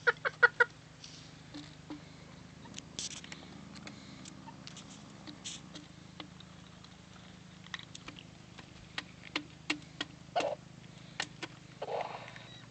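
Chickens pecking at cat food, with scattered sharp ticks and a few short clucking calls: a quick run of calls at the start and two more near the end. A faint low hum runs underneath.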